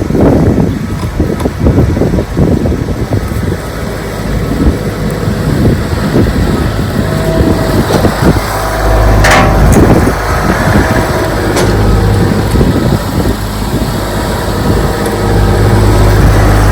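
Wind buffeting the microphone, then from about halfway an engine, taken for a farm tractor, starts running steadily with a low hum and is loudest near the end.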